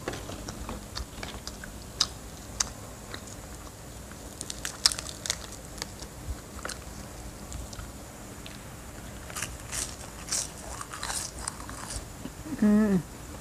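Crispy seaweed snack sheets crackling as they are torn and bitten, with crunchy chewing. The crackles come scattered, in clusters, and a short hummed "mm" comes near the end.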